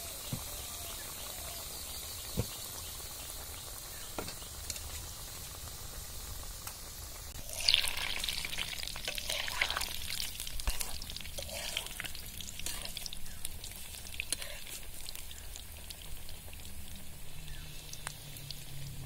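Palm fruit fritters deep-frying in hot oil in an iron wok, a steady sizzle. About eight seconds in, a metal spatula starts turning them, adding scraping and clicks against the pan and a louder, spluttering sizzle.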